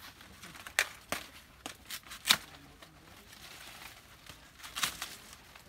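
Dry, dead banana leaves being torn and pulled off a banana plant by hand: a series of sharp crackling snaps and crinkles, the loudest about two seconds in, with another cluster near the end.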